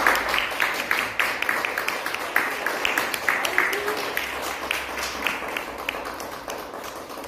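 A small group of people applauding by hand, fading away gradually toward the end.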